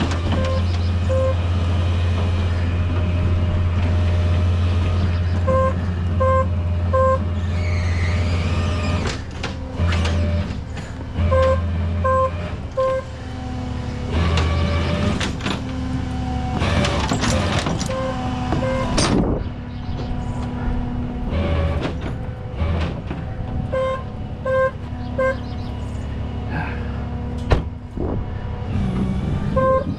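A truck engine runs with a steady low hum for the first nine seconds or so, which then comes and goes. Metal clanks and knocks are heard throughout, along with groups of three short, high beeps that repeat several times.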